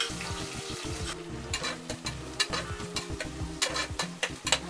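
Sliced onions sizzling as they fry with cumin seeds in hot ghee or oil in an aluminium pressure cooker, while a metal spoon stirs them, scraping and clicking against the pot. The clicks come thick and fast from about a second in.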